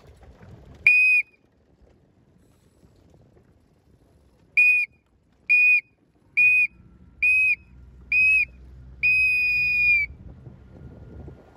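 Race starting signal sounding a steady high-pitched tone: one short blast, then five short blasts about a second apart and one longer blast, a countdown pattern typical of the final seconds to a sailing race start.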